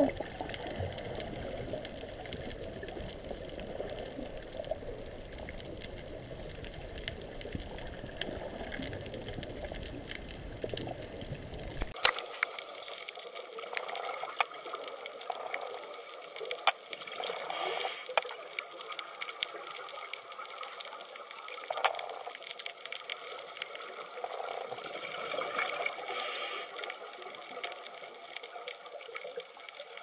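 Underwater ambience picked up by the camera: a steady rushing water noise that changes abruptly about twelve seconds in to a thinner hiss. The hiss carries scattered clicks and a few short bursts of noise.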